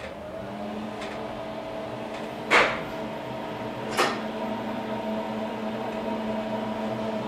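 SMW passenger elevator's drive running as the car descends: a whine of several tones that rises in pitch and levels off under a second in, then holds steady over a low hum. Two sharp clacks ring out about two and a half and four seconds in.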